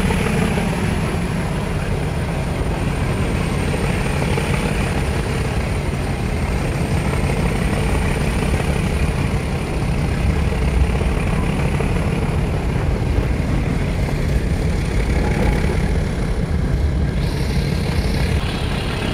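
Nilgiri Mountain Railway toy train running slowly uphill, heard from its open-windowed coach: a steady low rumble of the wheels and running gear on the track.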